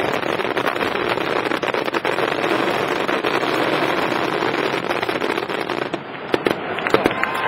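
Fireworks display going off: a dense, continuous crackle of many small rapid reports, which thins about six seconds in to a few separate sharp bangs.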